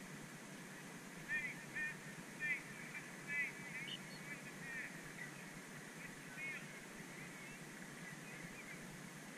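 Distant birds calling in a loose series of short, quick calls over a few seconds, thinning out toward the end, over a steady low background hum.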